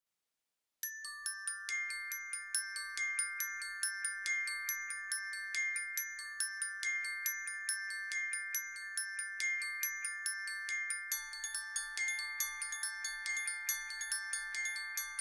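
Background music: a bright melody of quick, repeated ringing mallet notes that starts about a second in, with a lower note joining near the end.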